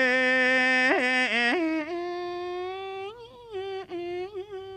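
A monk's voice chanting a sermon verse in a sung melody, holding one long drawn-out vowel with wavering ornaments. About two seconds in it steps up to a higher held note and grows quieter, with a few more wavers before the end.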